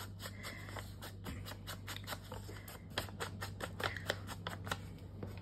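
Foam-padded ink blending tool brushed and dabbed along the edge of a paper card to ink it: a quick, irregular run of short scuffing strokes.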